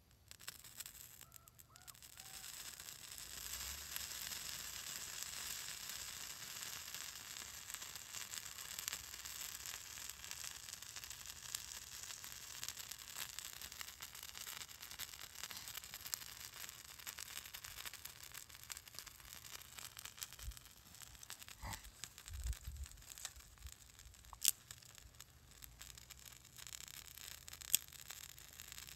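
A Fire-Nug fire starter burning on bare ice, hissing and sizzling steadily with fine crackling: the sizzle of the ice melting under the flame. Two sharp pops sound in the second half.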